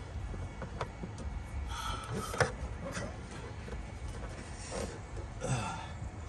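Scattered metallic clicks and ticks of hand tools working at a spark plug deep in a car's engine bay, with one sharp clink about two and a half seconds in and a few short scraping rasps, over a steady low rumble.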